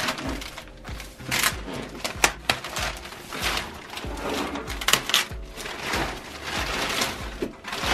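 Clear plastic packaging film crinkling and rustling in irregular bursts as it is cut with scissors and pulled away by hand, with music underneath.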